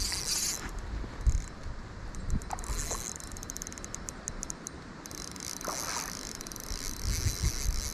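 Spinning fishing reel being worked, with a quick run of fine clicks about two and a half seconds in and a few low thumps.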